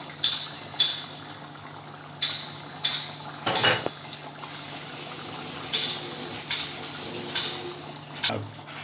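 Metal spoon stirring chicken curry in a cooking pot, clinking and scraping against the pan every half second to a second. The loudest is a longer scrape about three and a half seconds in, and there is a steady wet hiss from the gravy in the middle stretch.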